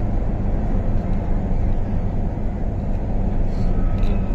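Steady loud rumble of an MTR South Island Line S-Train running at speed, heard from inside the passenger car, with a faint high tone coming in near the end.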